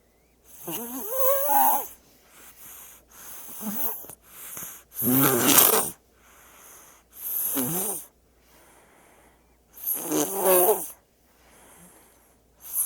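Baby snoring in sleep: a loud, wavering snore about every four to five seconds, with quieter breaths between.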